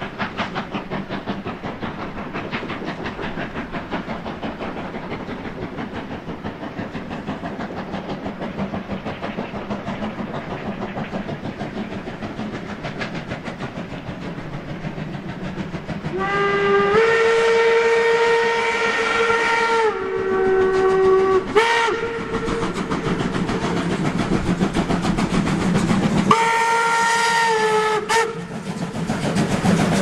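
Steam locomotives, led by DB class 64 tank engine 64 419, working hard with a rapid, even exhaust beat as they approach. About halfway through, a steam whistle blows a long blast of about four seconds that steps down in pitch, then a short toot, and near the end a second, shorter blast.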